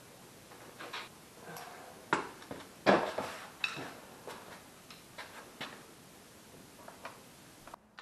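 Irregular clicks, taps and clatter of tools and parts being handled while working on a motorcycle, with two sharper knocks about two and three seconds in.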